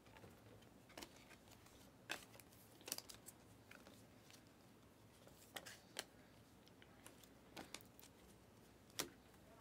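Faint, irregular clicks and snaps of glossy chromium trading cards being flipped and slid one by one through the hand, roughly one a second.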